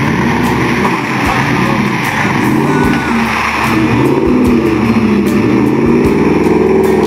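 Dodge Ram pickup's engine revving up and down repeatedly as it drives through deep mud, its spinning tyres throwing mud.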